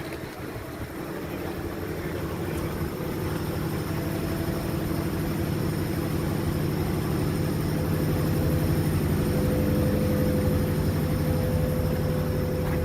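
A vehicle engine running at a steady speed, getting louder over the first several seconds and then holding.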